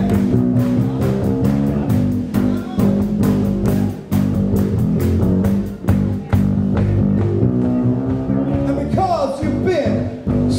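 Live rock band playing, with a prominent electric bass line, a drum kit keeping a steady beat and electric guitar. The drums drop out about two thirds of the way through, and a voice comes in near the end.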